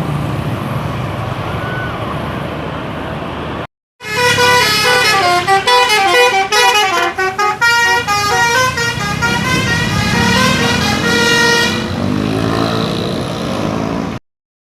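Bus musical air horn (DAV musical airhorn driven by a new telolet-basuri module) playing a quick melody of rapidly changing notes for about eight seconds. It follows and then gives way to the steady sound of the bus engine and road noise.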